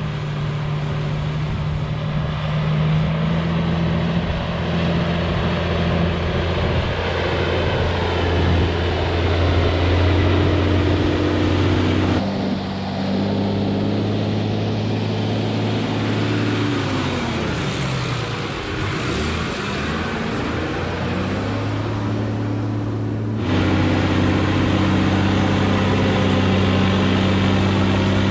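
Engine of a REO 6x6 army crane truck running as the truck drives over sand, a steady drone that shifts in pitch with engine speed. About two-thirds of the way through, the tone sweeps down and back up as the truck passes close to the microphone.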